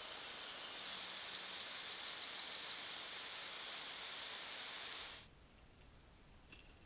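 Faint, steady hiss from a trail camera's microphone, with faint forest ambience. It drops abruptly to a quieter, lower hiss about five seconds in.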